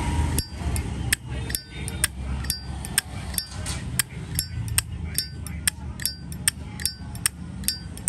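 Silver-plated 1990 Zippo lighter's lid flicked open and snapped shut again and again. It makes a sharp metallic click with a short ringing clink, about two or three times a second.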